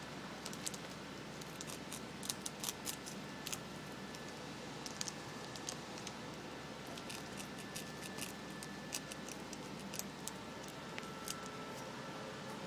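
Fox squirrel gnawing through a branch: irregular sharp crunching clicks of its teeth biting into the wood, coming in clusters of several at a time.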